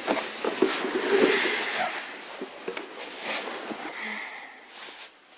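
A woman crying softly: breathy sobbing and sniffing, fading towards the end.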